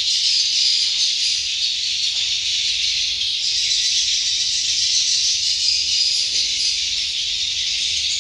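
Swiftlets in a swiftlet house: a dense, unbroken twittering chorus of high calls.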